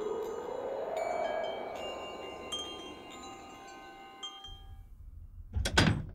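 Long metal tube wind chimes ringing, many overlapping tones over a rush of wind, dying away after about four seconds. Near the end a door shuts with two quick heavy thumps.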